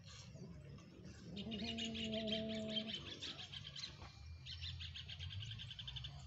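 Birds chirping in two rapid high trills, about a second apart, with a brief low steady tone under the first trill.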